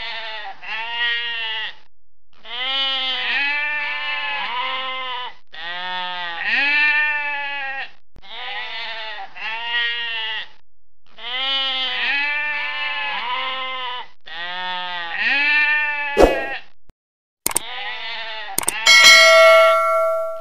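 Sheep bleating over and over, one wavering call after another in quick groups. Near the end a click and a ringing bell chime, the sound effect of a subscribe-button animation.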